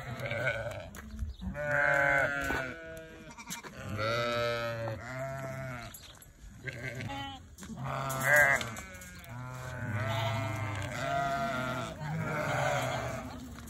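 A flock of sheep and lambs bleating: repeated wavering calls, some high and some lower, at times several at once.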